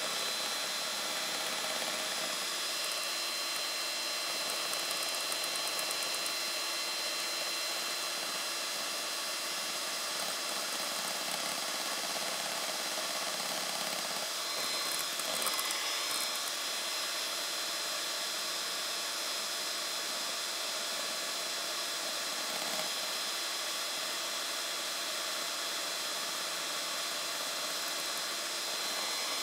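Electric hand mixer running steadily with a high motor whine, its beaters whipping cream in a stainless steel bowl; the cream is fluffy but not yet at peaks.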